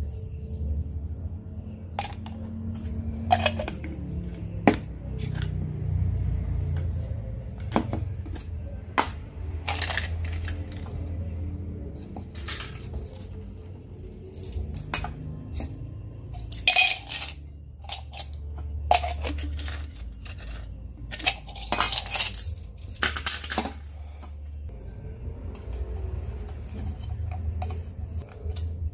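Small hard parts clicking and clinking as a miniature gas-cylinder-shaped canister is opened and its contents and perforated insert are handled, in irregular sharp knocks over a low steady background rumble.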